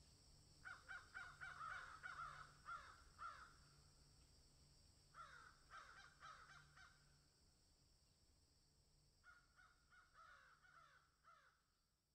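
Faint crows cawing in three bouts of rapid repeated caws, each caw dropping in pitch, over a steady high hiss.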